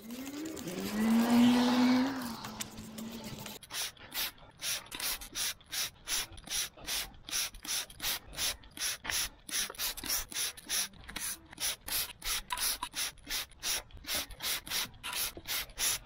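A hand trigger spray bottle, a Muc-Off bottle refilled with a dish-soap pre-wash, squirted over and over in a quick even rhythm of about three sprays a second from about four seconds in. Before the spraying there is a short hummed voice sound.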